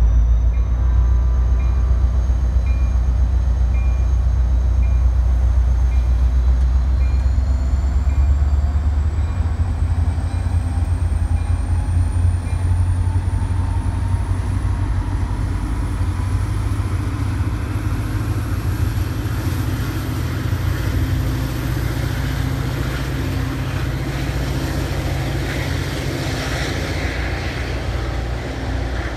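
Caltrain EMD F40PH-2C diesel-electric locomotive pulling its bi-level train away. A heavy diesel rumble is loudest for the first nine seconds or so, then eases as the train draws off, while a high whine climbs slowly in pitch as it gains speed.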